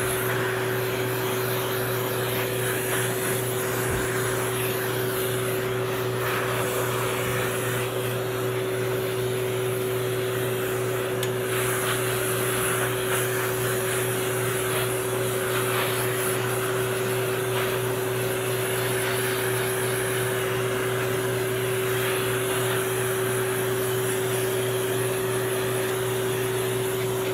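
High-velocity pet grooming dryer blowing steadily through its hose onto a dog's coat: a constant rush of air with a steady whine.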